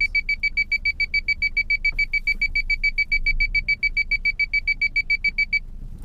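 Car's reverse parking-sensor beeper sounding a rapid, even run of short beeps at one pitch, about ten a second, as the car backs up; the beeping stops suddenly about five and a half seconds in.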